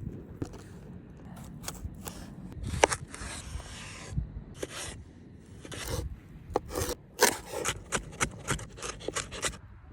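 Scraping and sharp knocks of marrow bones being worked on, with a stretch of scraping about three seconds in and a quick run of sharp knocks in the second half.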